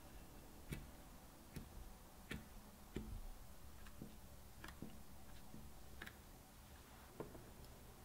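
Fork tines pricking thin whole-wheat cracker dough on a parchment-lined baking pan: soft, sharp taps, roughly one a second, at each poke.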